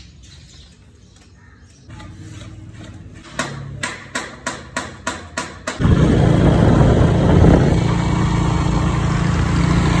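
An engine runs low and steady, then comes a series of about seven sharp knocks, a third of a second apart. About six seconds in, this gives way to a motorcycle riding along a road, much louder, with heavy wind rushing on the microphone.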